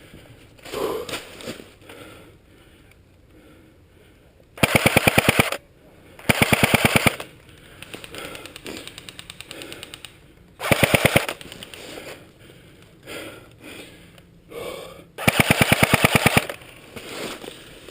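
Airsoft gun firing on full auto in four bursts of about a second each: a rapid, even clatter of shots.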